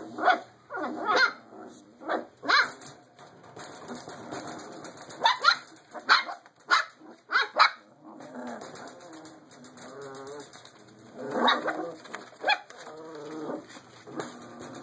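Five-week-old Belgian Malinois puppies barking and yipping in short, sharp calls every second or so, with longer wavering cries in between.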